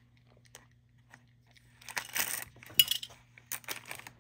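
Loose beads clicking and clinking together as they are handled, with a bag rustling. It starts about halfway through, with one sharp click a little before the three-second mark.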